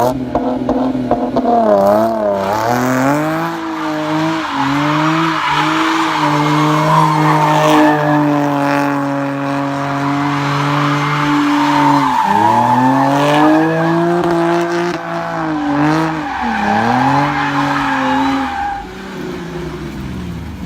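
Race car engine revving hard, its pitch climbing and dropping again and again as if shifting through the gears, ending abruptly.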